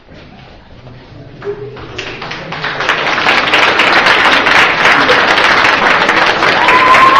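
School audience applauding: scattered claps swell into loud, dense applause about two seconds in, with a high shrill call from the crowd rising over it near the end.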